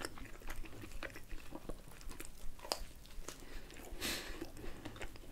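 Close-miked chewing of pizza, with small clicks of the mouth and a short crunch about four seconds in.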